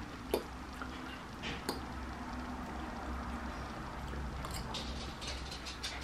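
A metal fork clicks against a ceramic bowl twice while scooping pasta salad, then close-up wet chewing and mouth sounds start after a bite is taken. A low steady hum sits underneath.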